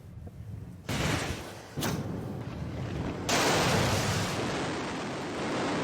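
Gunpowder being set off: a sudden burst about a second in and another near two seconds, then a long, loud rushing hiss of burning powder.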